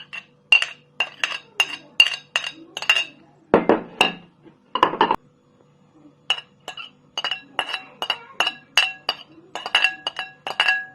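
A spoon tapping against the rim of a bowl to knock chopped tomato into it, making ringing clinks about three times a second. Partway through there are two longer scraping sounds.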